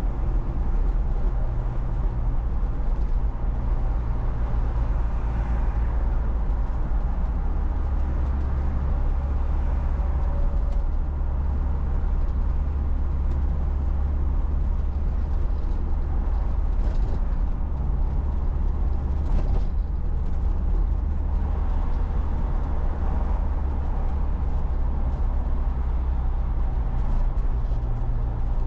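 Steady low engine drone and tyre and road noise inside the cab of an Iveco Daily van driving along at an even pace.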